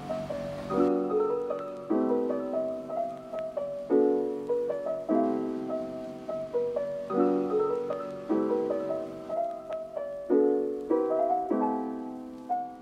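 Background piano music: chords struck every second or two, each ringing and fading away.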